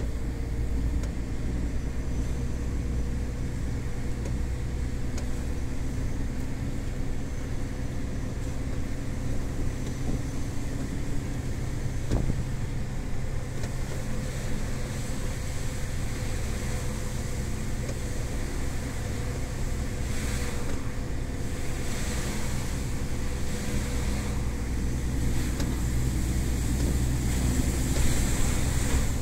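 MAN TGS 18.400 truck's inline-six diesel engine running steadily at low revs in a high gear, heard from inside the cab, with tyre and road noise. A single click comes about twelve seconds in.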